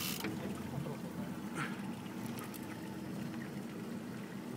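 Boat engine idling with a steady low hum, with water lapping and trickling against the hull.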